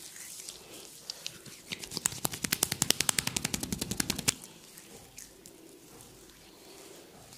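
A fast run of sharp cracks from the massage, about ten a second, lasting some two and a half seconds before stopping abruptly, with faint crackling and rustling before and after.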